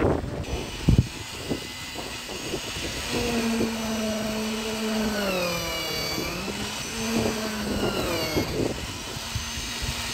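Construction machinery engine droning steadily for several seconds, its pitch sagging as it takes load and then recovering before it stops. A single sharp knock comes about a second in.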